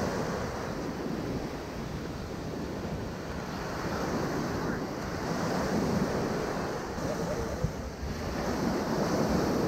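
Ocean surf washing in and breaking on a sandy beach, with wind buffeting the microphone; one sharp tap sounds about three-quarters of the way through.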